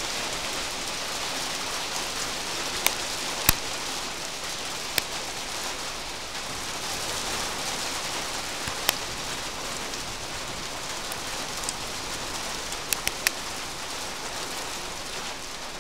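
Hail and rain falling hard in a steady, dense hiss, with a sharp click now and then as a single hailstone strikes a hard surface close by.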